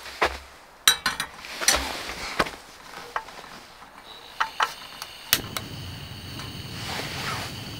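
Camp cookware and utensils being handled: a series of light clicks and knocks, then a steady hiss that starts abruptly about five seconds in.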